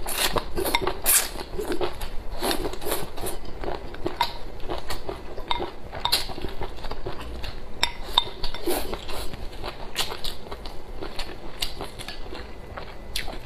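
Wooden chopsticks clicking and scraping against a ceramic rice bowl as rice is scooped into the mouth, many sharp clicks with an occasional short ringing clink.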